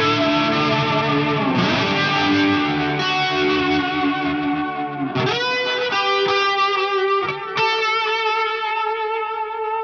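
Electric guitar played through an overdriven ambient preset on a Line 6 Helix, with distortion and a wash of effects. Layered chords ring together, then a new chord is struck about five seconds in and held, wavering slightly as it sustains.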